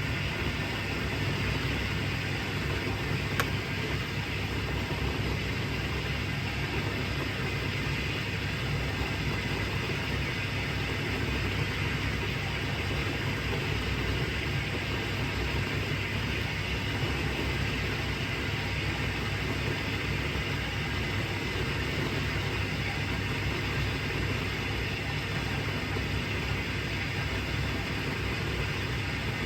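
1980s Vulcan Dishlex dishwasher running steadily, its pump humming low under the rush of water inside, with one short click about three seconds in.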